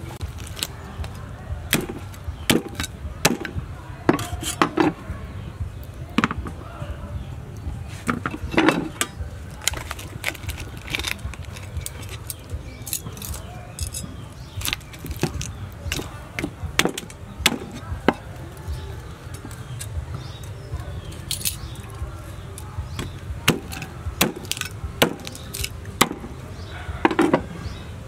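A meat cleaver chopping a whole cooked chicken on a round wooden chopping block, cutting through meat and bone. The chops come sharp and irregular, roughly one a second, over a steady low rumble.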